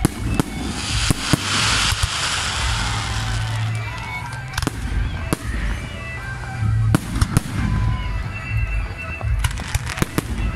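Aerial fireworks shells bursting: a string of sharp bangs and crackles, with a hissing, crackling spell about a second in and a cluster of the loudest bangs around seven seconds in.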